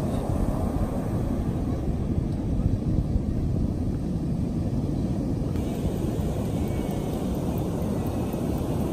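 Steady low rumble of ocean surf breaking on the shore, with wind buffeting the microphone.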